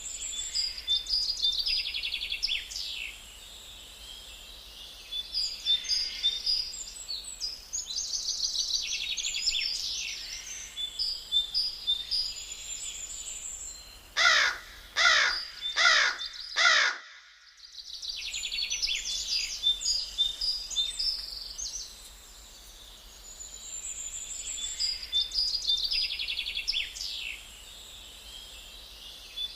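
Songbirds chirping in repeated high phrases, with a crow cawing four times about halfway through.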